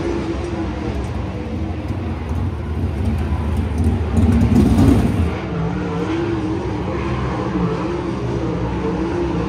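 Sprint car engines running on the track during a race: a continuous drone whose pitch rises and falls as the cars get on and off the throttle, swelling louder about four to five seconds in.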